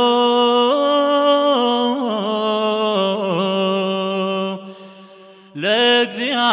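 Ethiopian Orthodox liturgical chant (zema) sung by a group of male cantors: one long melismatic line with held notes that slide up and down between pitches. The singing breaks off for about a second near the end, then comes back in.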